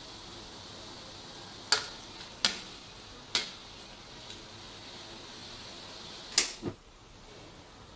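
Metal ladle clinking against a steel wok of simmering soup three times, then a heavier clank with a low knock near the end as the wok is handled, over a steady hiss from the gas burner.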